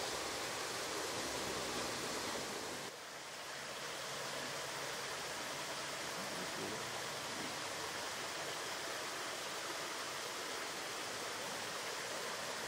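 Steady, even hiss of forest ambience with no distinct calls. About three seconds in it briefly dips and loses its low rumble, then carries on as before.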